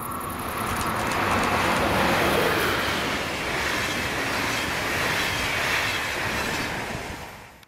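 Train passing close by, its wheels running on the rails, loudest about two seconds in, then cutting off suddenly.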